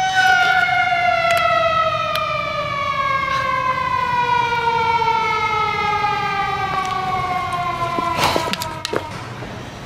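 Motor-driven siren winding down: a held wailing tone that slides slowly lower in pitch and fades away over several seconds. A couple of short knocks sound near the end.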